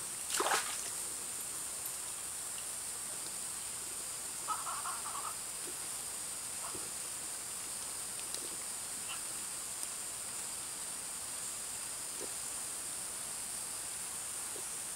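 Steady high-pitched hiss of the surroundings by a forest stream, with a short rustling noise about half a second in and a softer rustle around four and a half seconds in.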